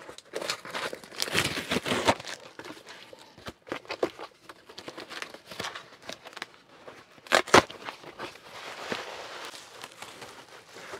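Cardboard shipping box being torn open: tape and cardboard ripping and scraping, with two sharp, loud rips about seven seconds in. Then bubble wrap crinkles steadily as it is pulled out of the box.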